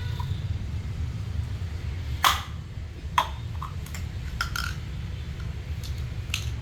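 A handful of sharp clicks and taps from small toy pieces being handled on a table, the loudest a little over two seconds in, over a steady low hum.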